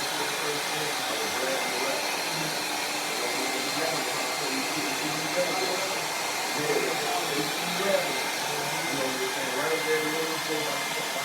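Steady rushing, blower-like noise that holds at one level, with faint indistinct talk underneath.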